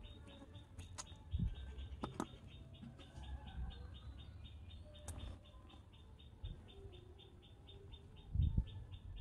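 Small clicks and dull bumps from a tiny seasoning bottle and its cap being handled and twisted, the loudest bump near the end. Behind them runs a steady background of fast, even chirping, about five a second.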